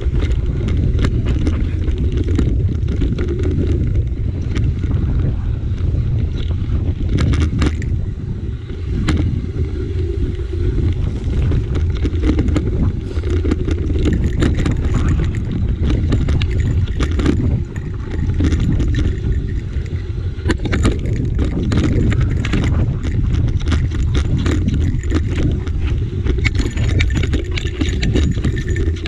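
Mountain bike descending a rocky trail: steady low wind rumble on the handlebar-mounted microphone, with frequent clattering and rattling as the tyres drop over rock slabs and the bike shakes.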